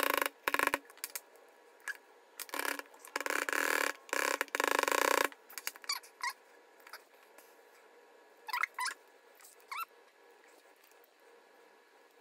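A metal hand tool scraping and grinding against the hard plastic of a Cuban Yo-Yo handline spool in several rough bursts through the first five seconds. A few short squeaks of plastic follow.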